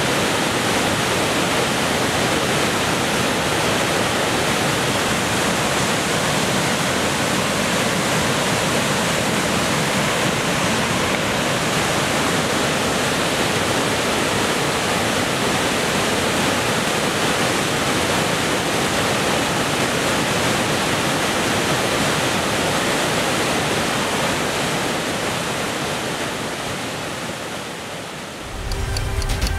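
Floodwater rushing through boulder-strewn whitewater rapids, a steady dense hiss that fades down near the end.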